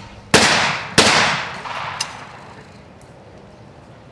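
Two shotgun shots fired at a pair of clay skeet targets, about two-thirds of a second apart, each ringing out with a long echo. A fainter sharp click follows about a second later.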